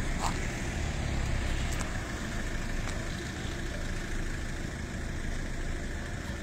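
Steady low rumble of car engines idling in a stopped traffic queue, with a few faint clicks.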